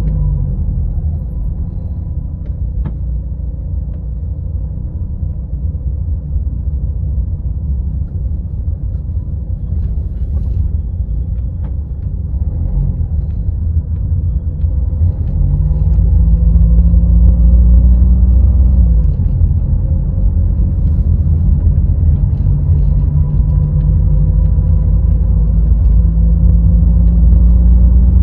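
Car engine and road noise while driving, a steady low rumble. The engine note drops at the start, then rises about fifteen seconds in as the car picks up speed, eases briefly and rises again, getting louder.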